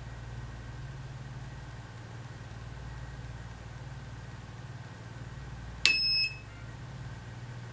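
Digital Watchdog DW-4AA DVR powering on: a sharp click, then one short high electronic beep near the end. A low steady electrical hum runs underneath.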